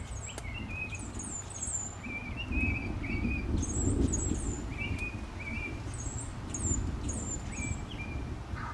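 Songbirds chirping in short, repeated notes, some high and some lower-pitched, over a steady low rumble.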